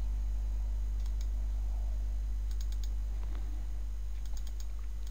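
Computer mouse clicking a few times, some clicks in quick pairs like double-clicks, over a steady low hum.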